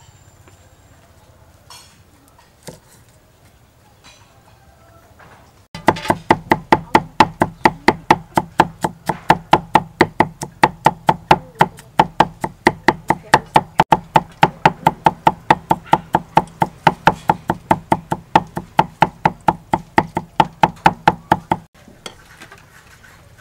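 Cleaver mincing garlic on a thick wooden chopping board: a long run of rapid, even strikes, each with a short ringing tone from the board. The strikes start about six seconds in and stop suddenly near the end, after a few light knocks at the start.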